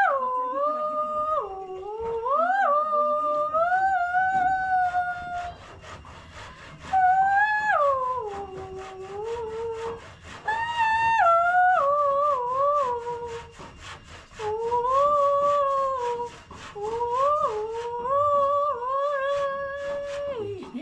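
A woman's wordless, high melodic call: the personal name-tune that a Khasi mother makes for her child, sung to call that child. It runs in about six phrases of sliding and stepping notes, with short breaths between them.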